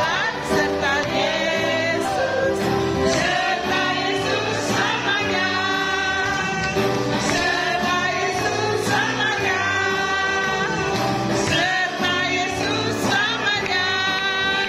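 Upbeat worship song: voices singing together over band accompaniment with a steady drum beat.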